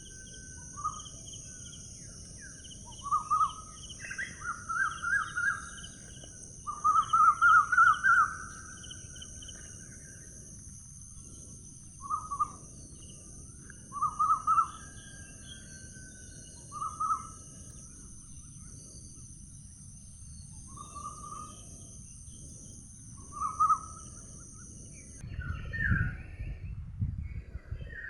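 Outdoor nature ambience: a bird calls over and over in short, fast trilled phrases, loudest about 7 to 8 s in. Behind it, a steady high insect buzz that cuts off suddenly about 25 s in, and a low rumble.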